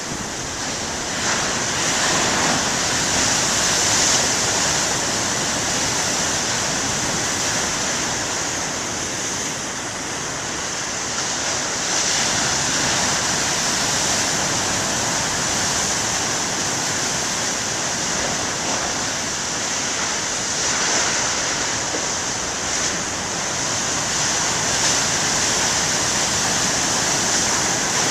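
Big ocean surf breaking onshore: a continuous rushing roar of water that swells several times as waves crash, notably about two to four seconds in, around twelve seconds, and again past twenty seconds.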